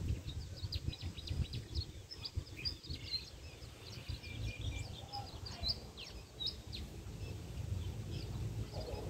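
Small birds chirping and calling in quick, overlapping high notes, over a low, uneven rumble.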